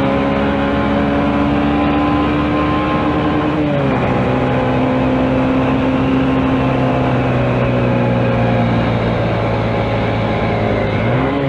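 Small motorcycle engine running under way, its pitch climbing slightly and then dropping sharply about four seconds in as it shifts up a gear, then holding steady, with a brief rise and fall in pitch near the end. Wind and road rush run underneath.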